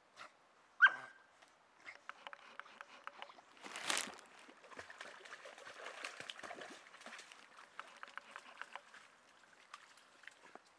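Dogs paddling and splashing in shallow water at the bank, with a louder splash about four seconds in and dripping, trickling water as they climb out. A single short, sharp, high cry about a second in is the loudest sound.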